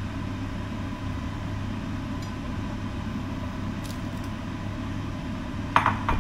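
Steady low mechanical hum of a running kitchen appliance, with a faint steady high tone over it. A couple of short sharp knocks near the end.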